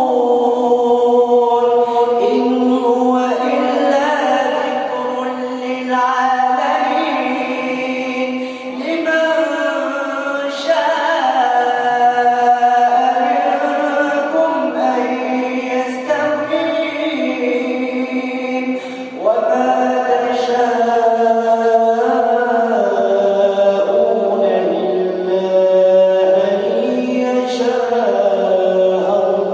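A single unaccompanied male voice chanting Quranic verses in melodic recitation (tajweed), holding long, ornamented notes that glide in pitch, with short breaks between phrases.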